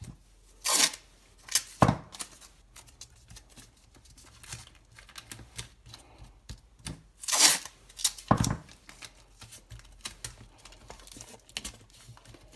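Adhesive tape ripped off the roll twice, with a sharp knock after each rip and small handling clicks in between.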